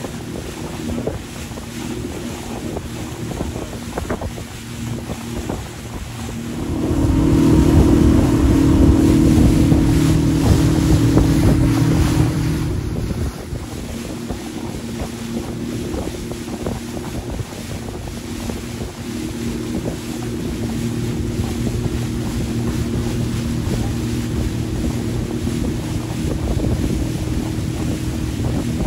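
Motorboat engine running at speed, with water rushing past the hull and wind buffeting the microphone. The engine grows louder a quarter of the way in for about six seconds, then settles back to a steady run.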